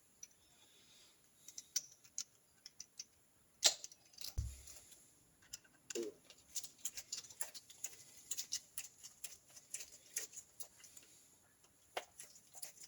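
Small metal parts of a Triumph Trident T160 oil pump clicking and tapping as they are handled and fitted together by hand, in irregular light clicks with a sharper knock and a dull thud about four seconds in.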